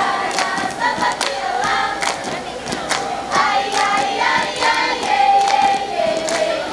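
A group of girls singing a scout chant-song in unison, with sharp hand claps keeping time about twice a second.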